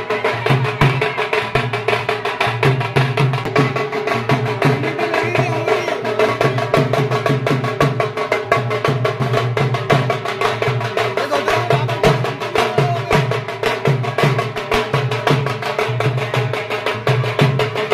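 Two steel-shelled dhol drums beaten with sticks, keeping up a fast, steady dance rhythm.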